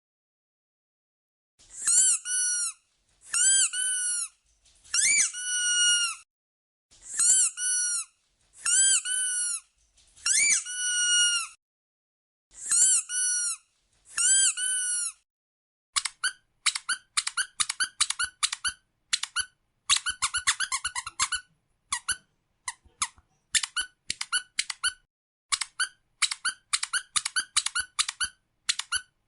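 Squeaky dog toy being squeezed. First come long, high-pitched squeaks in pairs and threes, each rising and then falling in pitch. From about halfway it changes to rapid short squeaks, several a second.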